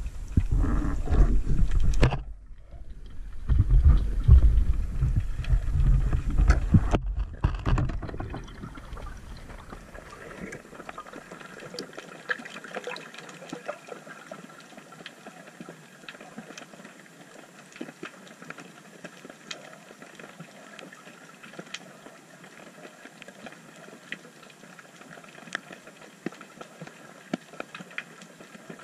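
Underwater sound picked up through a camera housing: a loud low rush of moving water for the first ten seconds or so, with two short breaks, then it settles to a quiet hiss scattered with many faint crackling clicks as the diver lies still at the crevice.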